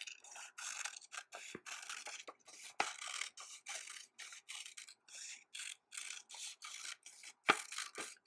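Scissors snipping through brown construction paper, cutting around a drawn circle in a quick run of short strokes, with the paper rustling. A few sharper clicks stand out, the loudest near the end.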